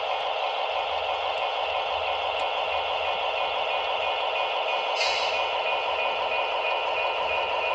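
Model diesel locomotive running slowly along the track, a steady even running sound with a brief sharper hiss about five seconds in.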